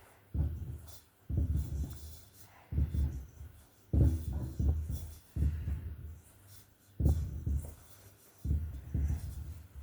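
Fingers rubbing butter into flour in a mixing bowl: repeated scraping, rubbing strokes with a dull thump at each one, about one every second or so.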